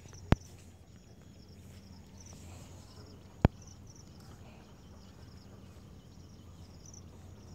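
Insects chirping in a fast, even, high-pitched pattern over a low steady hum. Two sharp clicks stand out, one a third of a second in and one about three and a half seconds in.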